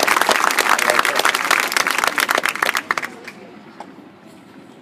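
Audience applauding in the stands, the clapping dying away about three seconds in to a quiet crowd background.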